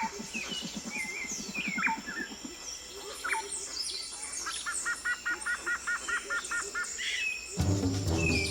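Birds calling and chirping in an outdoor ambience, with a rapid low croaking pulse through the first couple of seconds and a run of about ten quick two-note chirps in the middle. Music comes in near the end.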